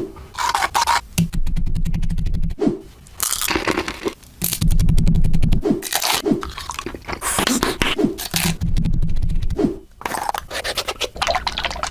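A string of short, crisp crunching and scraping sounds, one after another, some with a low hum underneath.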